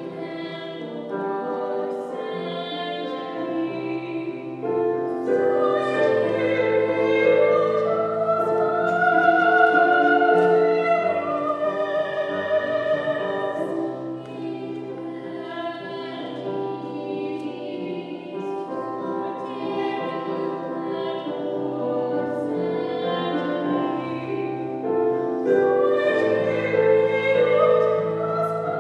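Small choir of women's and girls' voices singing in harmony, holding long notes, with a higher voice line that rises and falls above them.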